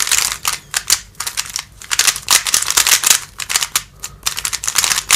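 Rapid, irregular plastic clicking and clacking of a MoFang JiaoShi MF3RS3M magnetic 3x3 speed cube being turned by hand, its first turns out of the box.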